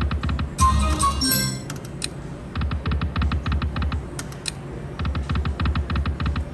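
Video slot machine's electronic reel-spin sound: runs of rapid even ticks, about eight or nine a second, as the reels spin, with a short chiming jingle about a second in as a spin ends.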